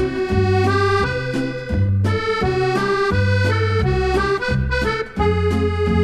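Background music: a melody of held notes over a bass line that moves in regular steps.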